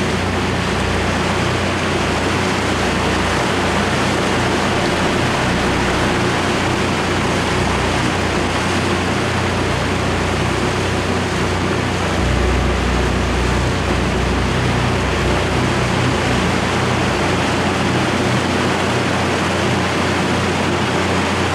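Steady rush of water and wind with a low engine drone underneath: a boat's motor running under way while towing a wakeboarder.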